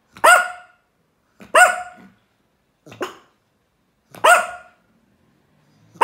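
Yorkshire terrier barking: four short, high-pitched barks about a second and a half apart, the third one weaker.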